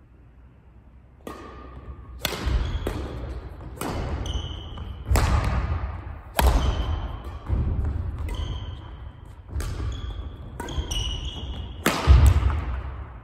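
Badminton singles rally: sharp racket strikes on the shuttlecock about once a second, starting about a second in and stopping near the end, with short sneaker squeaks and thudding footfalls on the wooden court floor, echoing in the sports hall.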